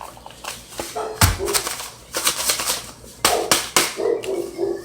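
Kitchen things being handled on a counter: a run of quick taps and knocks, with one heavier thump about a second in.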